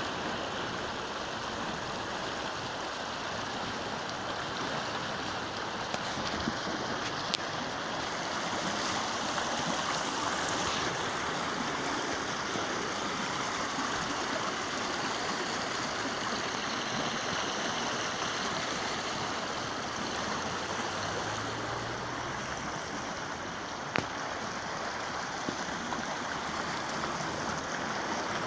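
Storm runoff flowing along a street: a steady rushing wash of water, with a few faint knocks.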